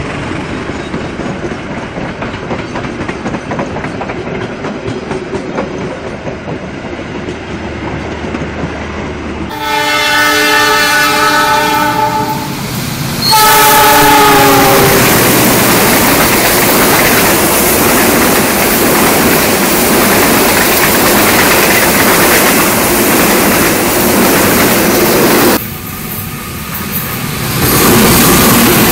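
Passenger coaches rolling past on the rails with steady wheel noise. About ten seconds in, a diesel locomotive's multi-note horn sounds a long blast and then a shorter second one, and the locomotive and its coaches pass close by with loud wheel and engine noise.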